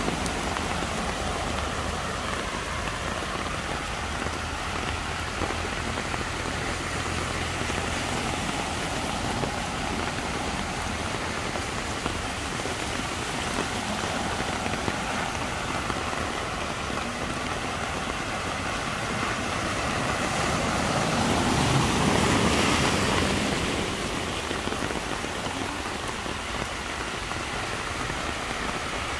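Heavy rain hissing steadily on a flooded road, with cars wading slowly through the standing water. A low engine hum in the first several seconds, and about two-thirds of the way through a car passes close, its tyres swishing through the floodwater and swelling to the loudest point before fading.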